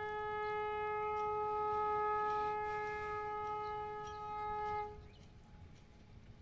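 Vande Bharat express train's horn sounding one long steady blast of about five seconds, which stops abruptly.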